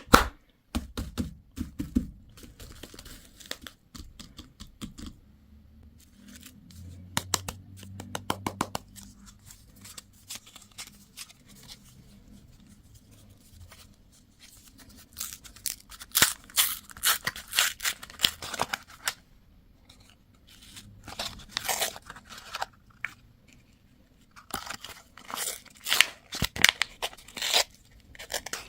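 Candy packaging wrappers being torn open and crinkled up close, in several spells of tearing and crackling with quieter handling between.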